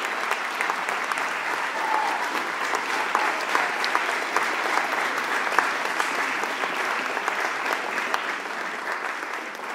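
Audience applauding steadily, a dense patter of many hands clapping that starts to fade near the end.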